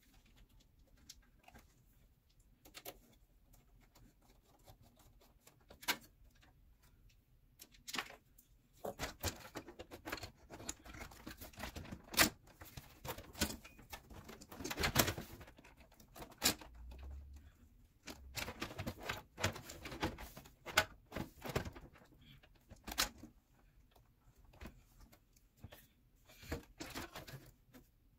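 Irregular clicks, knocks and rubbing as a liquid cooler's radiator and fan are handled and pushed into place inside a metal PC case, busiest through the middle.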